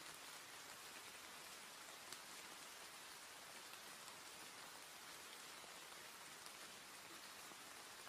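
Steady, soft rainfall: an even hiss with the odd louder drop.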